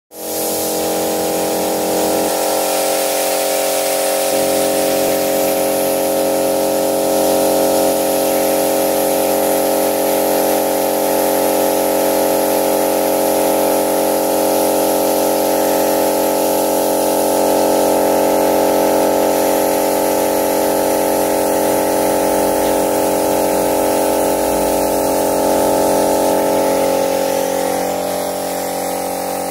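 Mini HVLP spray gun spraying: a steady rush of compressed air and atomised liquid from the nozzle, over a steady mechanical hum made of several held tones. It eases a little near the end.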